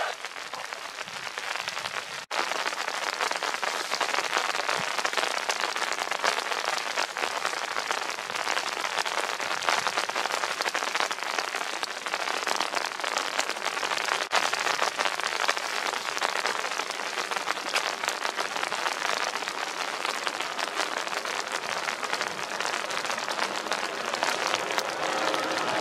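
Steady heavy rain, a dense patter of drops, with no aircraft engine yet audible above it.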